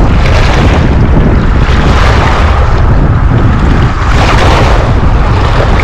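Strong wind buffeting the microphone: loud, low, gusting noise that swells and eases unevenly, with small waves washing on the rocky shore beneath it.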